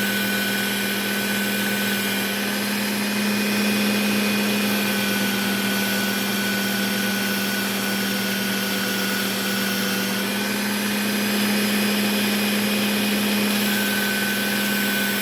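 Work Sharp Ken Onion Edition belt sharpener running steadily, its motor humming with a thin whine while the Trizact A30 abrasive belt grinds the edge of a small whittling knife to raise a burr.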